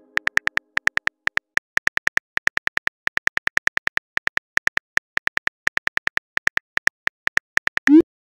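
Simulated phone keyboard typing clicks: a quick, uneven run of short ticks, about six a second, as a message is typed letter by letter. Just before the end, a short rising swoosh plays as the message is sent.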